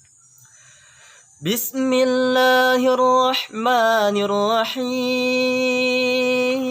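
A man's voice chanting the opening of a Quran recitation in a melodic tilawah style, starting about a second and a half in after a brief quiet. He holds long, drawn-out notes, with a wavering ornamented run in the middle.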